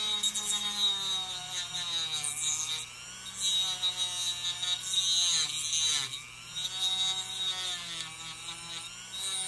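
Dremel rotary tool with a cut-off wheel cutting into a small part, with a grinding hiss. The motor's pitch drops each time the wheel bites in, about two seconds in and again about six seconds in, and climbs back as the load eases.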